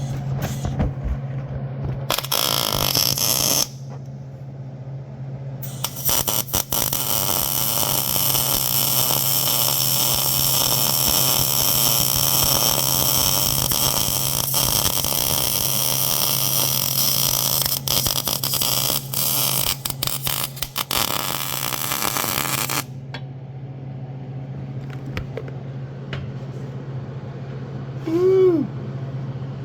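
Arc welding on a car frame: a short weld of about a second and a half a couple of seconds in, then a long continuous crackling bead of about seventeen seconds, over a steady low hum. A brief rising-and-falling tone sounds near the end.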